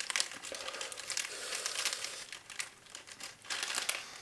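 Plastic snack packet crinkling and crackling as it is handled and opened, in irregular bursts that are busiest in the middle and near the end.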